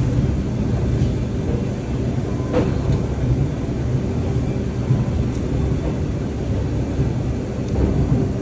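Steady low rumble of a laundry machine running, with a brief click about two and a half seconds in.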